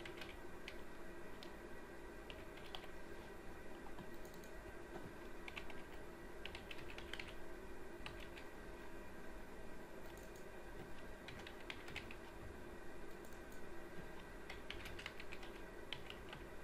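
Computer keyboard typing, faint, in short bursts of keystrokes with pauses between them.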